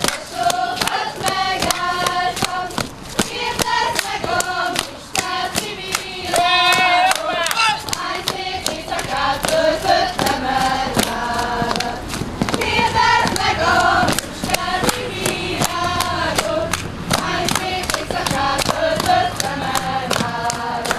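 A group of women singing a Hungarian folk song together, with a steady beat of sharp claps about three a second running under the singing.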